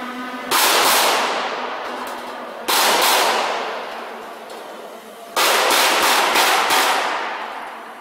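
Three loud, sudden metal bangs from a sheet-metal seam-locking machine and the thin steel sheet being worked in it, each a quick cluster of strikes that trails off over a couple of seconds, over a low steady machine hum.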